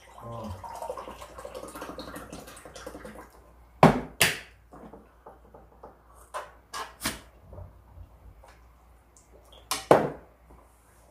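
Cooking utensils clinking and knocking against a pot and dishes: a scattering of sharp clacks, the loudest about four seconds in and again near ten seconds. A soft continuous rustle fills the first three seconds.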